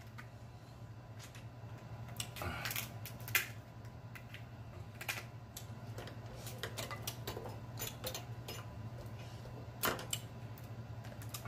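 Lobster shell being cracked and picked apart with a metal cracker and by hand: scattered sharp cracks and clicks, two of them louder, about three seconds in and near the end, over a steady low hum.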